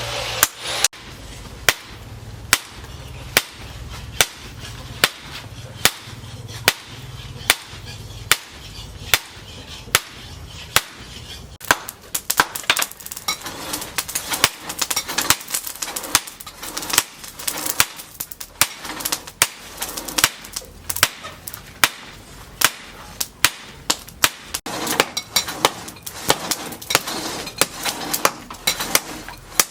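Hammer striking the steel of a leaf spring on an anvil, blow after blow, slow and even at first, then faster and less regular about twelve seconds in.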